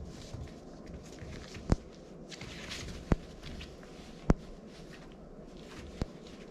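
Puppies moving about on their bedding: soft shuffling and rustling, broken by four sharp clicks spaced a second or so apart.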